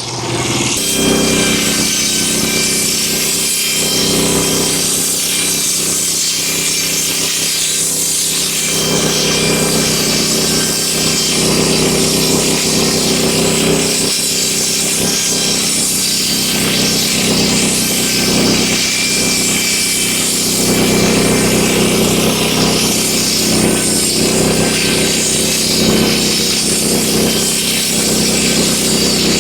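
Wood-Mizer LX25 band sawmill cutting through a hemlock beam: the blade runs steadily through the wood over the engine's constant drone.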